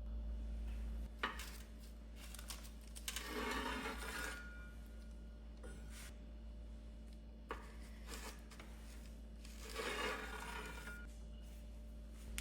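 Small handling sounds: a couple of sharp knocks and two scraping, rustling swishes about a second long each, over a faint steady hum.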